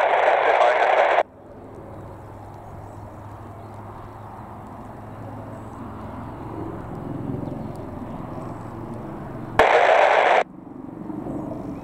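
Westland Wildcat HMA2 helicopter heard at a distance as a steady low rotor and turbine rumble that swells a little midway. Two short, loud bursts of radio hiss cut in and off sharply, one at the start and one about ten seconds in.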